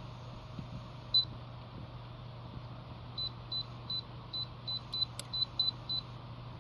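DREO space heater's control panel beeping as its buttons are pressed: one beep, then a run of about nine quick beeps at the same high pitch, over a steady low hum.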